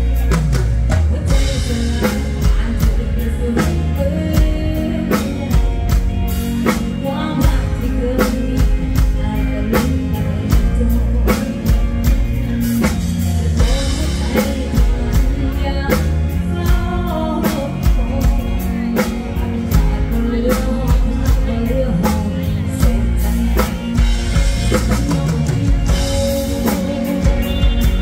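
Live Thai luk thung band music: a drum kit keeps a steady beat under the band while a woman sings the melody into the microphone.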